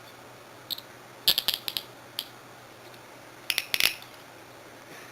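Chicago Handcuff Company Model 1000 nickel-finish handcuffs being worked, giving sharp metallic ratchet clicks as the jaw swings through the lock. There is a single click, then a quick run of clicks about a second in, and another run about three and a half seconds in.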